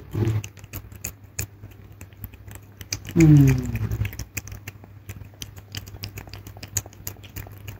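A cat eating soft wet mousse food from a metal dish: quick, irregular wet clicks and smacks of licking and chewing. A short voice with falling pitch sounds about three seconds in, over a steady low hum.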